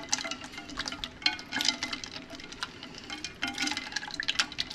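Blanched green beans being stirred in a bowl of ice water: water sloshing, with irregular sharp clicks and clinks of ice cubes.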